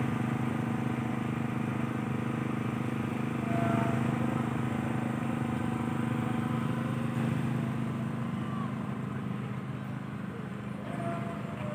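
A steady low engine hum that holds an even pitch, under general street bustle with faint distant voices.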